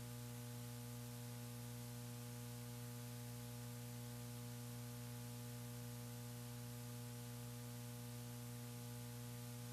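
Steady electrical mains hum with a low buzz and many even overtones, over a faint hiss of static, on the launch-control audio feed.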